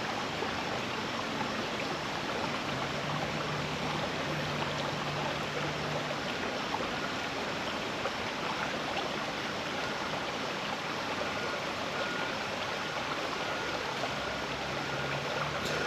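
Creek water flowing steadily, an even rushing sound.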